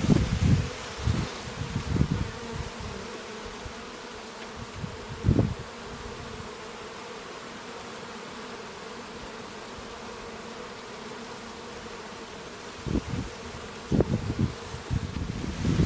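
Bees buzzing in a steady hum. Loud low bumps come and go over it in the first two seconds, once a little after five seconds, and again near the end.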